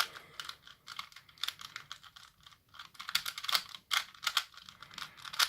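Plastic 3×3 Rubik's Cube being turned by hand in quick runs of twists, its layers clicking and clattering on each turn.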